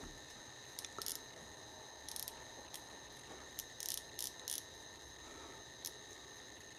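Micrometer ratchet stop clicking faintly in short irregular runs as the thimble is turned by hand, checking how freely the spindle runs after its thread adjustment was tightened.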